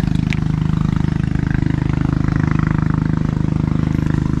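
A small engine running steadily at a constant speed, with a fast, even pulse.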